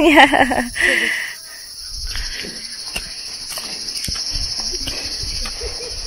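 Insects droning in a steady, high, even tone that carries on unchanged, with a woman's voice over it during the first second.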